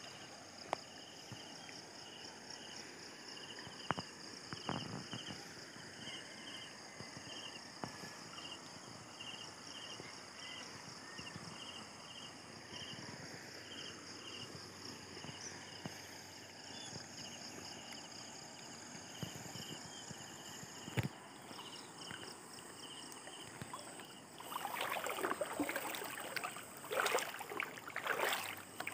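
Steady flow of a river with insects chirping in a high, regular rhythm. About 25 seconds in, louder, irregular splashing of shallow water sets in close by.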